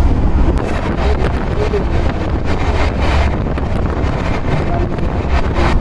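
Pooja Superfast Express train running: a steady low rumble with wind buffeting the microphone, and faint voices underneath.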